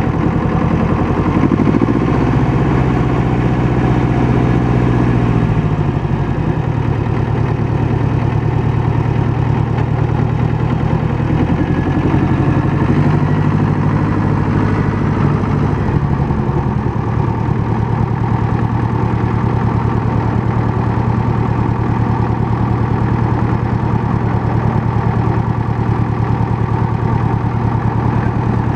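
Farm Pro 2420 compact tractor's diesel engine running, its speed rising and falling a few times in the first half, then holding a steady idle from about the middle on.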